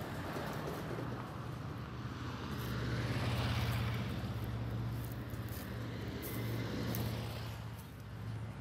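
Motor vehicles running on the road close by: a steady low engine hum, with a vehicle passing loudest about three and a half seconds in and another smaller swell near seven seconds.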